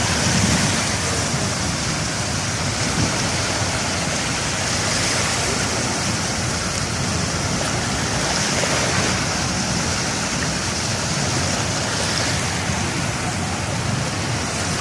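Surf washing in on a beach: a steady rush of water that swells every few seconds as each wave comes in.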